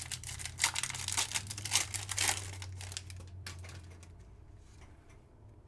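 Plastic card packaging crinkling and rustling as it is handled, with dense irregular crackles that fade to a faint rustle after about three and a half seconds.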